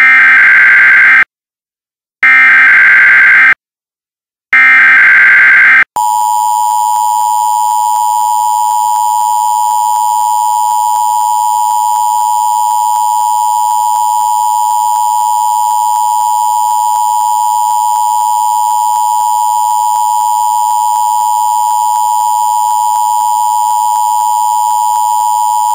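Emergency Alert System tones: three bursts of the SAME digital header, each a buzzing data warble about a second and a half long with short silences between, then the two-tone attention signal, a steady dissonant tone held for about twenty seconds until it cuts off.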